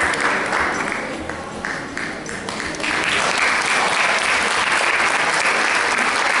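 Audience applauding, thinning out about a second in and swelling back to full strength about three seconds in.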